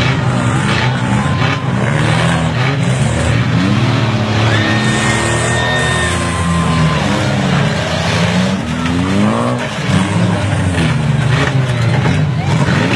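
Several demolition-derby cars' engines running and revving hard, the revs rising and falling as the cars push and ram one another in the mud.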